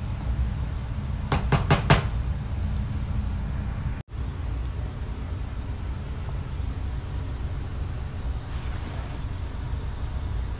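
Pot of saluyot (jute-leaf) soup at a rolling boil, a steady low rumble. About one and a half seconds in, a few quick knocks as the wooden spatula hits the aluminium pot.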